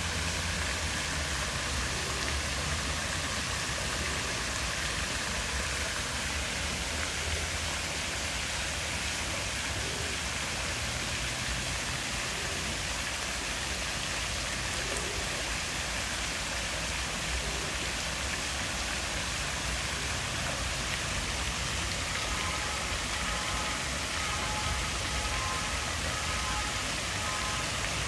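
Fountain jets splashing steadily into a pool: an even hiss of many small streams of falling water.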